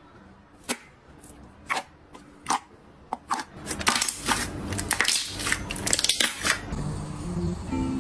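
Clear slime squeezed and pressed by hand, giving single sharp wet pops about once a second, then a dense run of clicking, crackling pops as the hands push into it, easing off near the end.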